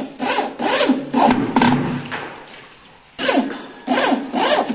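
Electric drill driving screws into a sliding-door track bracket in short trigger bursts. The motor speeds up and slows down with each pull, with a longer pause about halfway through.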